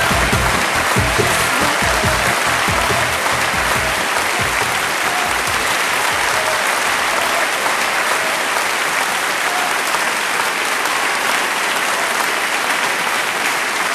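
Crowd applauding steadily, with a low drumbeat under it in the first few seconds that fades out.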